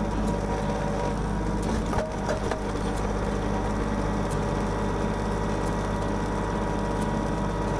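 Kubota tractor's diesel engine running steadily while the backhoe boom is worked hydraulically, with scattered clicks and knocks, a few of them close together about two seconds in.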